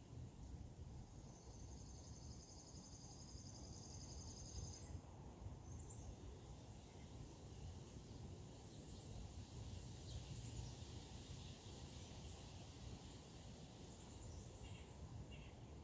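Near silence: faint outdoor ambience with a steady low rumble. A high, fast-pulsing trill runs from about a second and a half in for some three seconds, with a few faint chirps.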